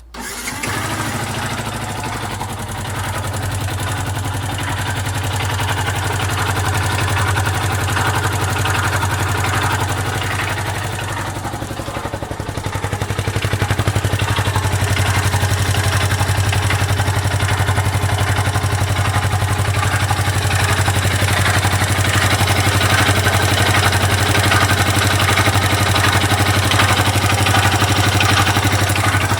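Yamaha YZF-R125's 125 cc single-cylinder four-stroke engine running at idle, then held at slightly higher revs from about halfway through. A faint scratchy, squelchy noise comes in time with the engine, about once every four or five engine pulses, in an engine that has been run low on oil and is using more oil than normal.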